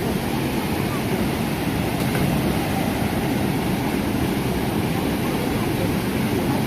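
Steady rushing noise of falling water from a waterfall, deep and even throughout.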